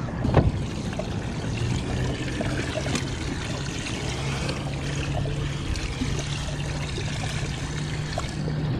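Water trickling and pouring steadily over a low, steady hum. There is a single knock of handling about half a second in.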